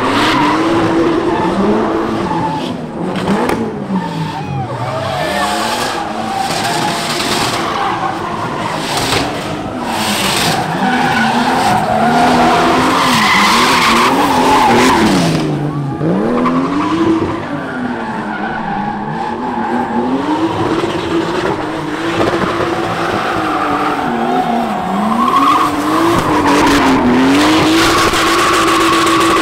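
Drift cars sliding sideways with tyres squealing, their engines held at high revs, the pitch dipping and climbing again over and over as the throttle is worked through the drift.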